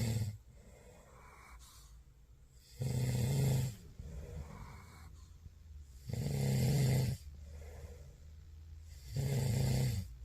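A Maltese puppy snoring in a slow, regular rhythm: three loud, low snores about three seconds apart, with softer snores in between.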